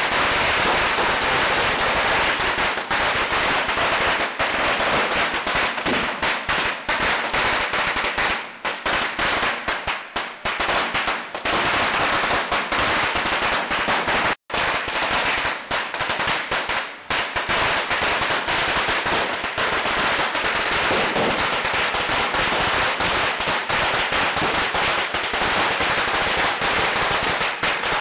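A long string of firecrackers (a 'metralleta') going off in a rapid, unbroken rattle of small bangs, thinning a little about a third of the way in and breaking off for an instant about halfway.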